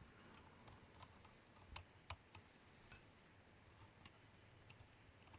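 Faint, scattered light clicks and taps from a toy model skid steer and its auger attachment being handled, with near silence between them.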